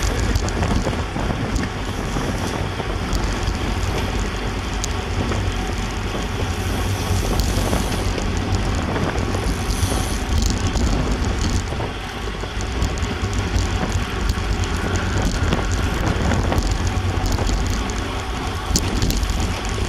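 Wind buffeting the microphone of a camera on a road bike riding at about 27 mph in a bunched pack of racing bicycles, with steady tyre noise on asphalt and scattered sharp ticks.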